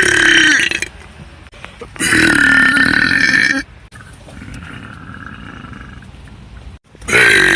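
A person belching on purpose: three loud burps, a short one, then a longer one of about a second and a half beginning about two seconds in, each sinking slightly in pitch, and a third starting near the end.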